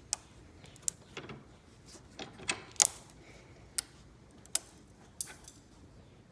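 A blue keyboard switch and its parts being handled: about nine sharp clicks and taps at uneven intervals, the loudest just before three seconds in.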